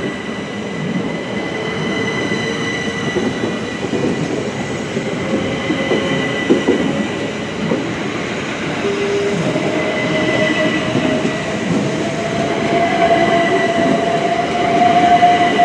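Southeastern Class 375 Electrostar electric train pulling out of the platform and accelerating past, with a steady high whine and a lower motor whine that rises in pitch from about halfway through, over the rumble and clatter of wheels on the rails.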